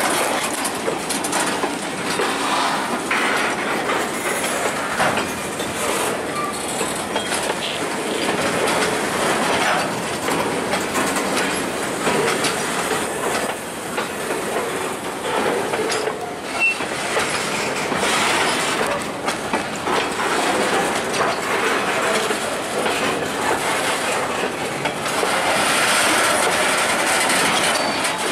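Freight train of covered hopper cars rolling past, its steel wheels clattering over the rail joints in a steady run of clacks and rumble.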